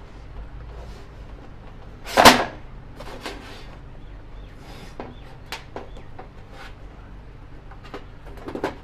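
Scattered metal clicks and knocks from a chain breaker tool being fitted and worked on a motorcycle drive chain, with one loud clank about two seconds in.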